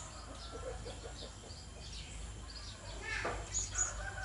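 Blue-crowned hanging parrot (serindit) giving a series of short, high chirping calls.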